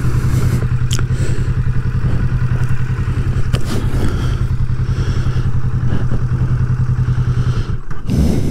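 Kawasaki Vulcan S 649 cc parallel-twin engine running steadily at low revs, with a couple of light knocks, then switched off about 8 seconds in.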